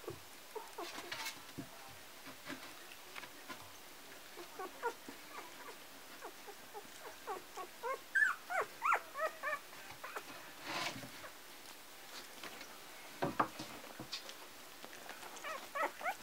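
A 12-day-old puppy whimpering and squeaking in short high calls that bend up and down, with a quick flurry of them about halfway through and more near the end. Some rustling comes between the calls.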